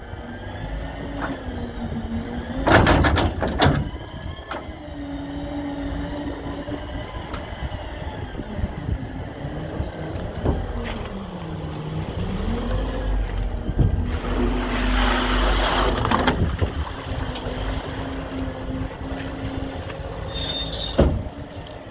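Scania P310 CNG garbage truck running at the rear loader, its engine and hydraulics giving a hum that rises and falls in pitch. There is a burst of metallic clanking about three seconds in, a louder rushing noise for a couple of seconds around the middle, and a sharp clank near the end.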